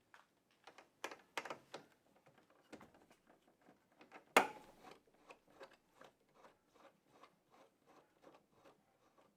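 Small clicks and scrapes of a Phillips screwdriver working the screws on top of a Ram ProMaster headlight cover. One sharp click about four and a half seconds in, then a run of small ticks at about three a second.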